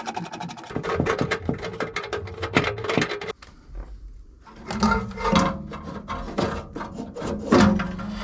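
Knocks, clicks and scraping from metal parts of a gas water heater's burner assembly being handled, in two bursts with a short lull in between.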